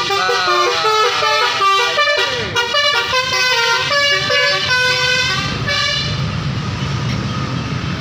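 Telolet basuri multi-tone bus horn on a Mercedes-Benz OH 1626 coach playing a quick melody of changing notes, some sliding up and down. After about six seconds the tune stops and the coach's engine and tyres are heard as it drives past.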